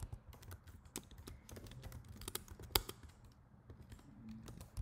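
Computer keyboard typing: irregular key clicks, about three or four a second, with one sharper, louder click just before the three-second mark.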